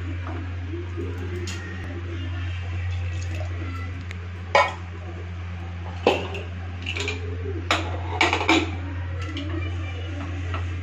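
Stainless steel kitchen vessels clattering and clinking: a handful of sharp knocks, the loudest about four and a half seconds in and several more in the second half, over a steady low hum.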